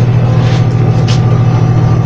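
Refrigeration vacuum pump running steadily with a loud, low, fast-pulsing hum as it evacuates the air conditioner's R32 refrigerant circuit to remove air and moisture before charging. Two short hisses come about half a second and a second in.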